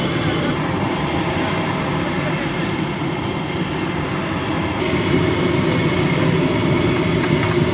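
Steady low rumbling noise at a roadside frying stall where kachoris cook in a large wok of hot oil, with no single event standing out.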